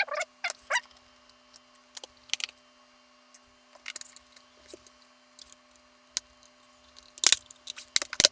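Scattered small clicks, taps and scrapes of a screwdriver and small metal screws on a laptop's plastic case as the bottom panel is unscrewed, with a faint steady hum underneath.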